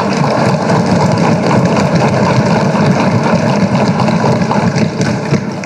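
Assembly members applauding by thumping their desks: many rapid thuds merge into one loud, steady clatter that fades near the end.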